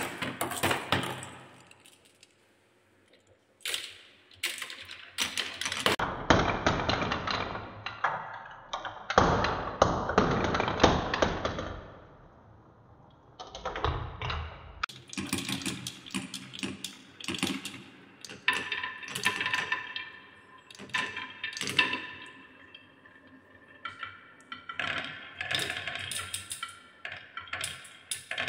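Marbles rolling and clattering down wooden marble-run tracks and spirals: rapid clicks and rattles as they hit the wood and knock against each other, coming in runs with short pauses between them.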